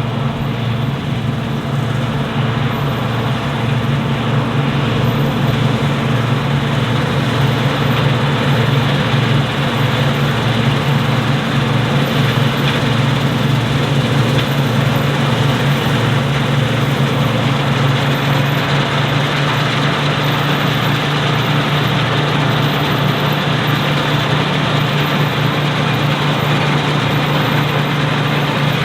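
Large diesel engine running steadily at constant speed, a loud, even low drone with no changes in pitch.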